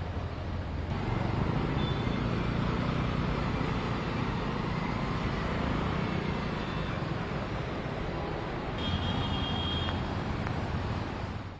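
Traffic on a flooded street: vehicle engines and the wash of tyres through standing water, a steady noise that gets louder about a second in.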